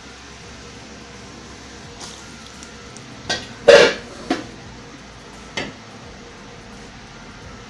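Murukku frying in hot oil with a steady hiss, broken by four sharp knocks midway, the second much the loudest.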